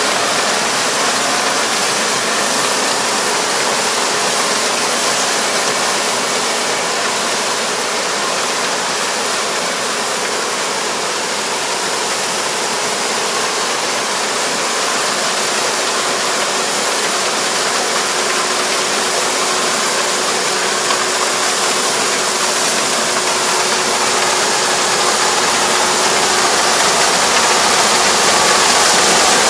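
Four-row rice combine harvester running steadily as it cuts lodged rice, a constant even rush of machinery noise that grows a little louder near the end.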